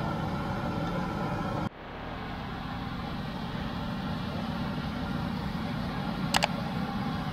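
Hot oil sizzling in a large wok as potato chips deep-fry, cutting off abruptly about a second and a half in. Then a steady low rumble of street traffic, with a couple of sharp metallic clinks near the end.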